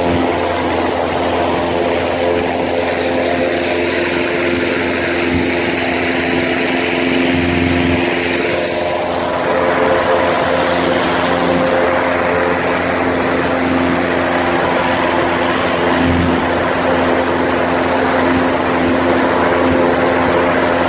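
Motorboat engine running steadily underway, a hum of even engine tones under the rush of water and wind, which shifts about halfway through.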